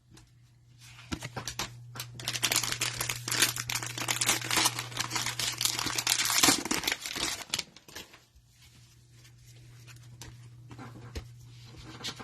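A trading-card hanger pack being torn open, its wrapper crinkling loudly from about a second in until near the eighth second, then softer rustling as the cards are handled.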